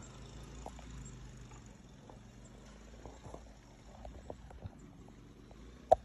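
Faint low rumble of blizzard wind, with scattered light ticks and clicks and one sharper click near the end.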